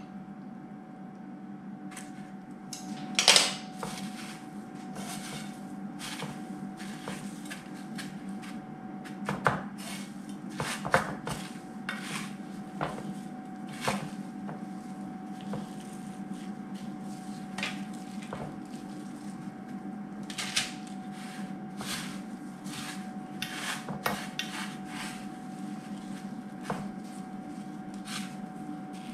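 Panko breadcrumbs rustle and crunch as hands press them onto egg-dipped pork rolls in a ceramic dish. Wooden chopsticks clack against the dish and bowl, the loudest clack coming about three seconds in, over a steady low hum.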